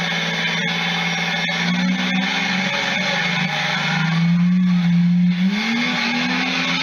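A machine's motor whines steadily, its pitch shifting and rising a little about five and a half seconds in, with a few faint clicks in the first two seconds.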